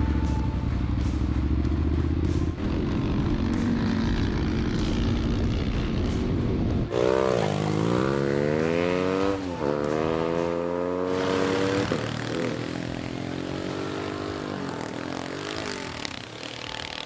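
Motorcycle riding: a low, steady rumble for the first several seconds, then, after an abrupt change about seven seconds in, a motorcycle engine revving up and down, its pitch rising, dropping and rising again several times.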